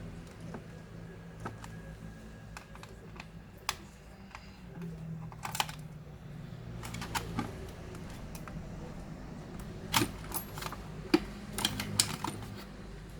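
Irregular clicks and taps of small plastic and metal parts and tools being handled during a laptop disassembly, more frequent and louder in the second half, over a steady low hum.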